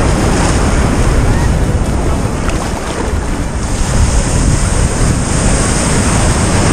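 Ocean surf breaking and washing around a camera held at the waterline, with wind buffeting the microphone; a wave breaks close by near the end.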